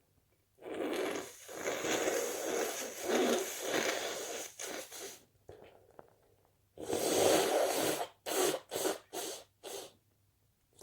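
A person sneezing: about four and a half seconds of noisy, breathy sneezing, then after a short pause a loud sneeze followed by four short quick bursts.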